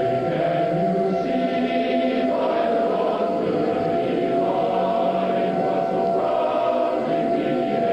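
Choral music: many voices singing together over a steady held tone, with no break.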